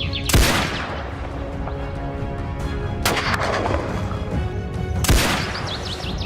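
Three rifle shots, about two to three seconds apart, each with a trailing echo, over background music.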